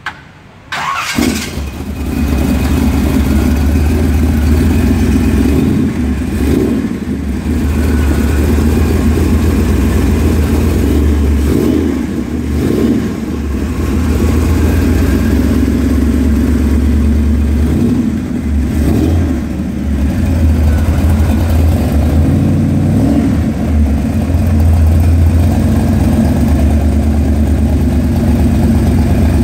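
1939 Chevrolet coupe street rod's carbureted engine starting about a second in, then idling steadily and revved briefly several times.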